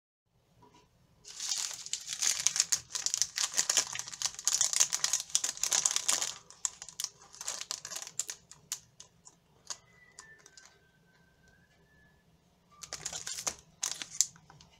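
Plastic film candy wrappers crinkling as they are handled: a long dense run of crackling, then scattered crackles, and another short burst near the end.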